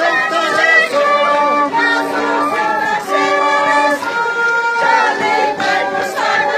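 A group of voices singing a pinkillo dance song together, with long held notes that slide between pitches.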